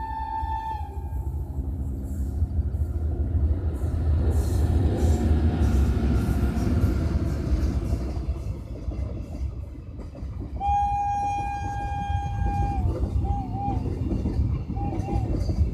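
WAG-7 electric locomotive and its parcel-van rake passing at speed, the wheels rumbling and clattering over the rails, loudest in the first half. Its horn ends just after the start, sounds again in a long blast of about two seconds some ten seconds in, then gives two pairs of short toots.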